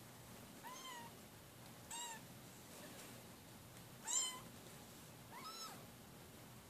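Newborn kittens mewing while nursing: four short, high-pitched mews that rise and fall, the loudest about four seconds in. Blind and hungry, they are jostling for their mother's milk.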